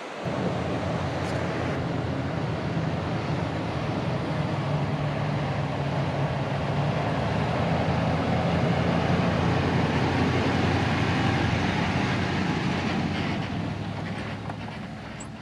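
RAM 1500 pickup towing a caravan driving slowly past over grass: a steady engine drone with tyre noise that grows louder as it approaches, then fades as it pulls away near the end.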